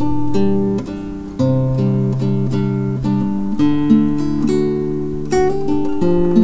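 Acoustic guitar music: a picked melody of short, fading notes over lower bass notes.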